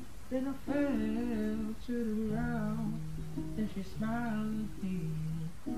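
Background music: acoustic guitar with a sung melody.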